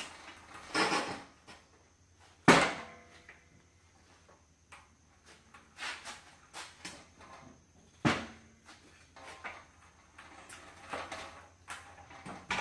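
Scattered knocks and clatter of things being handled, with a sharp loud knock about two and a half seconds in and another about two-thirds of the way through, over a faint steady hum.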